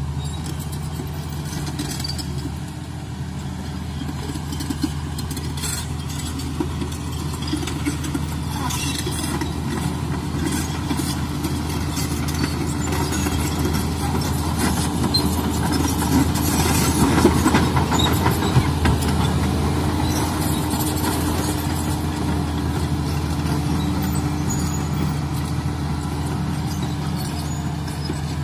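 D85 crawler bulldozer working soil, its diesel engine running steadily under load with scattered clanks. It grows louder around the middle as the machine comes closest, then eases off.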